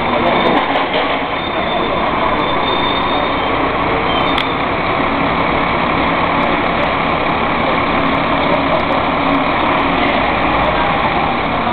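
Dennis Trident II double-decker bus running in street traffic: a steady engine and road noise with no sharp events, a faint steady hum coming in about five seconds in.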